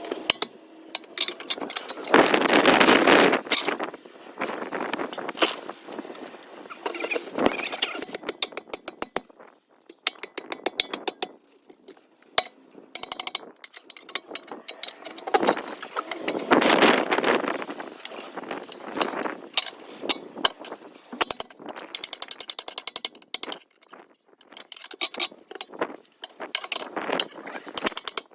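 Ratcheting clicks in quick runs from tools working on a tractor wheel, with two louder bursts of rushing noise, about two seconds in and again about sixteen seconds in.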